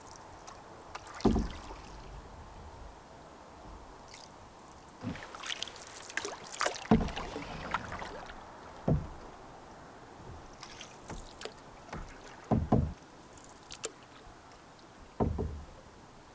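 Canoe being paddled: water splashing around the paddle and a handful of sharp low knocks at irregular intervals, about five in all.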